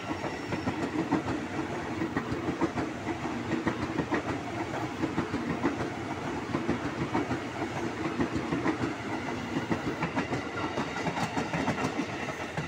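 KRL Commuter Line electric multiple-unit train passing close by: a steady rumble of steel wheels on the rails with rapid, continuous clicking over the rail joints.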